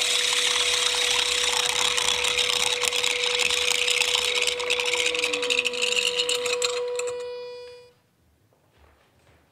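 Small electric motor under a glass preserving jar spinning the water into a vortex: a steady whir with a swirling, hissing water sound. It fades quickly and stops about eight seconds in. Its run time is set by how loud the triggering scream was.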